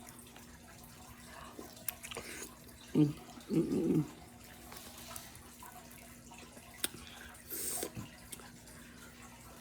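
Wet eating sounds of crawfish being peeled and sucked: slurps, moist mouth noises and sharp little shell clicks, with a brief hum of the mouth about three to four seconds in.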